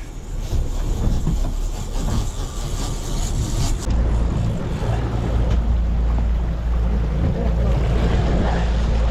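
Fishing boat's engine running with a steady low rumble, under wind and water noise on the open deck; the rumble grows heavier about four seconds in.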